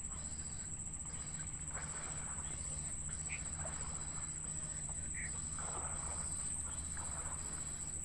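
A steady high-pitched insect buzz, like crickets in the grass, over a low steady hum, with faint short peeps from the nestlings every second or so.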